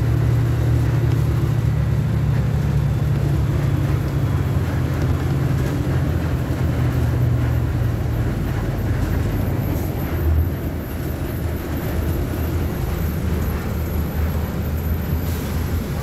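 Diesel engine of a Volkswagen 17.230 OD city bus running with a steady low drone. There is a short louder bump about ten seconds in, after which it runs a little quieter.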